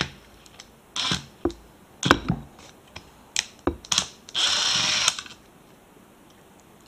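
A cordless drill-driver with a long extension bit runs once, for under a second, about four and a half seconds in, backing a screw out of a plastic Kobalt 24 V battery case. Before that come several short clicks and knocks as the bit and the plastic case are handled.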